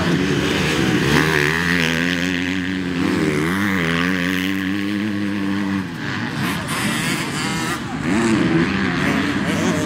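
Motocross bike engines running on the track, their pitch rising and falling as the riders work the throttle. The sound drops away about two-thirds of the way through, then picks up strongly again.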